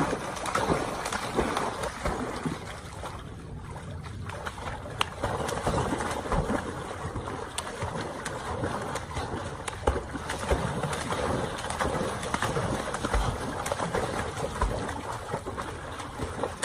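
Pool water splashing and sloshing steadily as a large dog wades and paddles through it.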